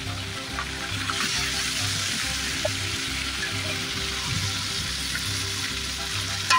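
Masala-coated chicken pieces sizzling steadily as they fry in hot oil in a large aluminium pot, turned over with a long metal ladle. The chicken is already cooked; the masala coating is being fried for flavour.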